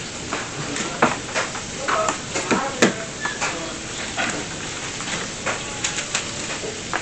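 Steady sizzle of chicken frying in oil, with scattered clicks and taps as a fork scrapes cookie dough out of a clear plastic tray and the pieces are set on a parchment-lined baking sheet.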